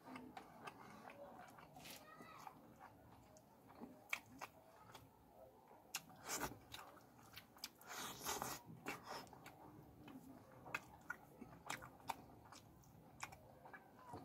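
Close-miked eating sounds of a man eating fish curry by hand: many short wet clicks and smacks from licking sauce off his fingers and from biting and chewing pieces of fish. The sounds are busiest about six to nine seconds in.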